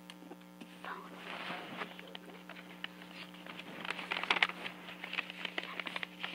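A girl's soft, whispered speech over a steady low electrical hum, with a run of light clicks about four seconds in.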